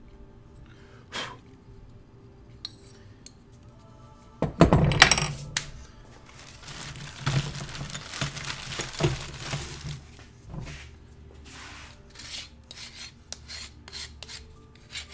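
Metal carving tools clattering loudly onto a table about four seconds in. Then scraping, and from about eleven seconds a run of short strokes of a hand file along the edge of a plaster face cast, trimming it, over background music.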